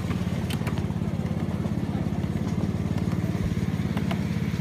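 Small engine of a ride-on miniature railway locomotive running steadily, with a fast, even putter as the train moves along the track. A few light clicks sound over it.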